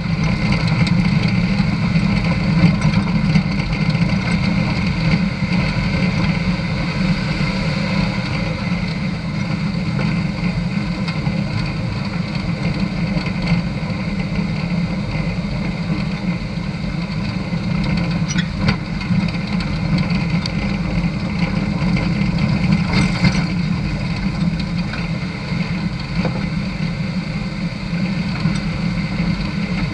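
Engine of an off-road vehicle running steadily as it drives along a gravel dirt road.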